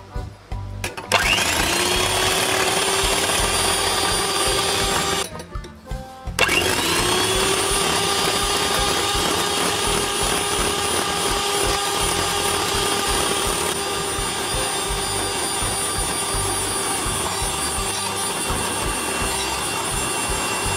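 Electric hand mixer whipping egg whites in a glass bowl. The motor starts about a second in with a whine that rises as it spins up, stops for a moment around five seconds, then starts again and runs steadily.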